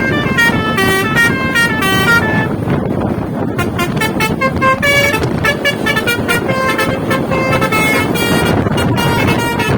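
Bus 'telolet' musical horn playing a fast tune of short, stepping notes, with a brief gap about three seconds in, over steady vehicle noise.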